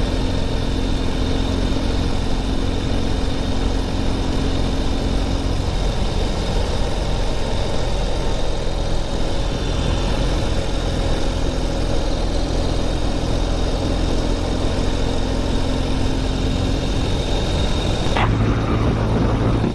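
2021 Ural Gear Up sidecar motorcycle's air-cooled flat-twin engine running at a steady cruise, with wind and road noise on the microphone. A little after 18 seconds in, the wind hiss drops and the engine note changes.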